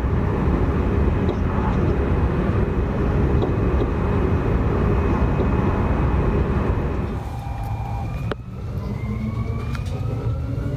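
Alstom Régiolis regional train heard on board while running: a heavy rolling rumble that eases about seven seconds in. After a click, the traction motors' whine climbs slowly in pitch as the train picks up speed.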